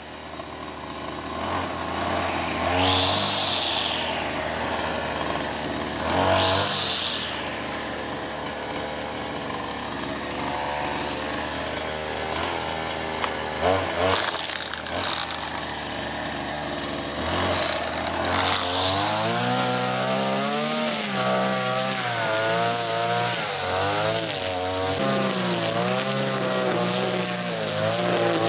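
New brushcutter with a bump-feed line head running, revved up and back down twice in the first few seconds. From about two-thirds through it is held at high revs, its pitch wavering up and down as the spinning line cuts through weeds.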